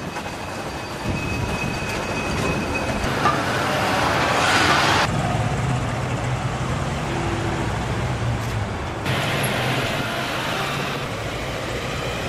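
Street traffic with a car engine running low and steady. A rushing hiss swells about three seconds in and cuts off sharply about five seconds in.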